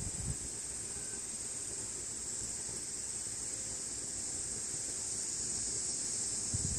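Steady, high-pitched insect chorus: a continuous shrill trilling that does not let up. A few low thumps of handling or wind on the microphone just after the start and near the end.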